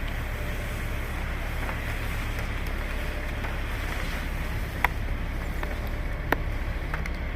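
Car engine running steadily, with two sharp clicks, one about five seconds in and one about six seconds in.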